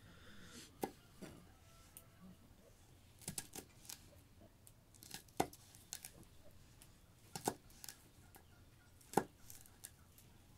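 Kitchen knife chopping fresh green beans on a wooden cutting board: separate, irregular cuts, some in quick runs of two or three, the loudest about nine seconds in.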